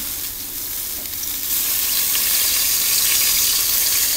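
Chicken thighs sizzling on the wire rack of a COBB charcoal grill, fat dripping onto the hot coals. The sizzle grows louder about a second and a half in, with a few faint clicks of metal tongs moving the pieces.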